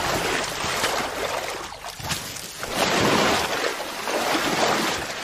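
Water splashing and churning in several surges as caiman rush into the water.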